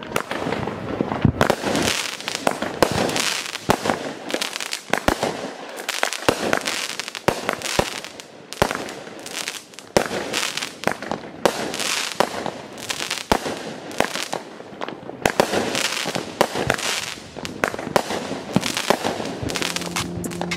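Dominator Rowdy Rampage 16-shot consumer firework cake firing: sharp launch and burst bangs one after another, about one a second, each trailed by a dense crackle as the stars break open.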